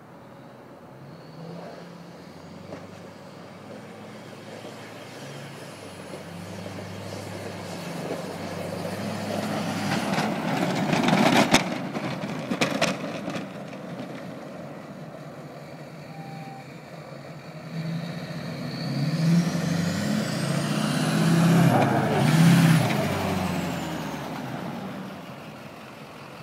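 Duramax V8 diesel pickup with a 5-inch MBRP exhaust driving by with its plow: the exhaust rumble swells as it passes closest, about eleven seconds in, with a few sharp clatters, then fades. It comes back louder later, with a high whistle that rises and then falls, and eases off near the end.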